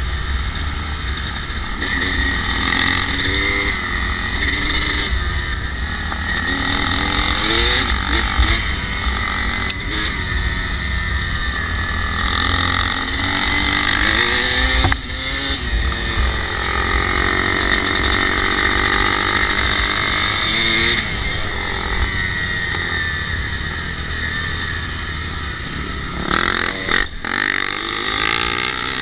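Kawasaki KX250 two-stroke dirt bike being ridden, its engine revving up and easing off again and again as the rider works the throttle. Heavy wind noise rushes over the microphone.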